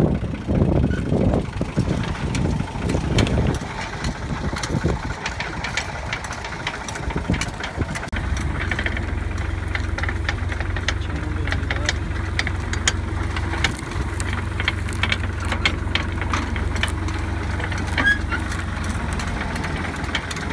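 Tractor engine running, uneven for the first few seconds and then settling into a steady low drone about eight seconds in, with scattered sharp clicks and rattles of machinery over it.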